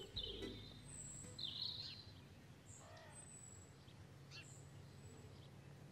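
Faint birdsong: scattered short chirps and thin, high whistles.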